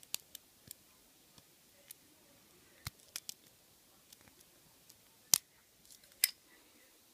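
Lock pick and tension wrench working a five-pin padlock, giving scattered sharp metallic clicks, with two louder clicks a little over five and six seconds in.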